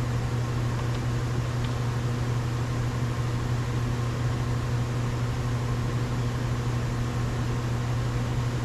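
Steady low mechanical hum with a few faint higher steady tones, like a fan or other running machine, without change throughout; one faint tick about a second and a half in.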